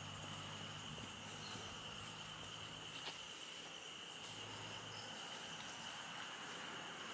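Steady, high-pitched insect chorus, a continuous unbroken trill from the roadside forest vegetation, with a faint low hum underneath in the first second.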